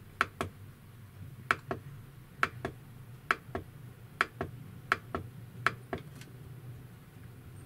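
Clicks from the rotary encoder control knob of a Gophert CPS-3205 II bench power supply as it is worked to set the output voltage: seven pairs of short, sharp clicks, about one pair every 0.8 seconds.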